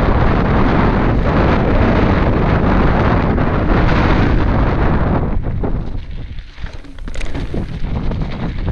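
Wind buffeting an action camera's microphone during a fast mountain-bike descent, over the rumble and rattle of a Commencal Meta SX's tyres on a loose gravel track. The noise eases briefly about six seconds in, with a few sharp clicks, then builds again.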